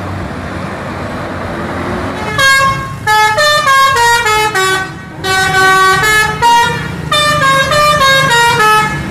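Bus engine and traffic noise, then, about two and a half seconds in, a bus's musical multi-tone horn (an Indonesian 'telolet' horn) playing a quick tune of stepping notes, with a short break about halfway through.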